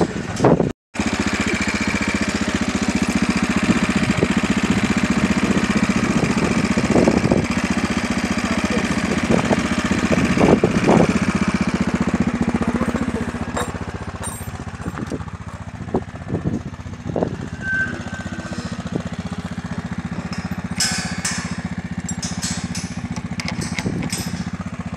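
A car on the move: a steady engine and road hum, with a few soft knocks and some clicks near the end.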